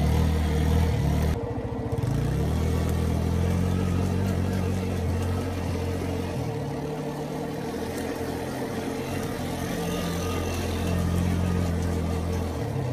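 Can-Am DS90 youth ATV's small single-cylinder four-stroke engine running as the quad is ridden across grass, its pitch rising and falling with the throttle.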